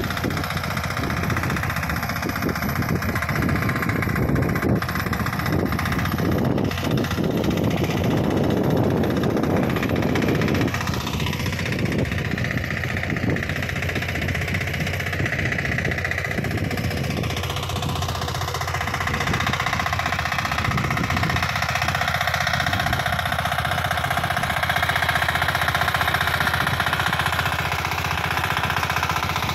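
Walk-behind power tiller's small engine running steadily under load as it pulls a blade-harrow cultivator between crop rows.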